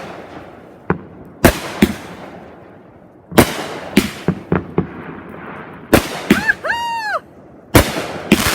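Consumer fireworks going off: a dozen or so sharp bangs, some in quick clusters, with whistling fireworks rising and falling in pitch about two-thirds of the way through.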